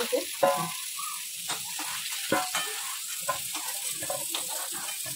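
Potato chunks frying in hot oil in a steel karahi, a steady sizzle, with a spatula scraping and tapping against the pan now and then as the pieces are turned and lifted out.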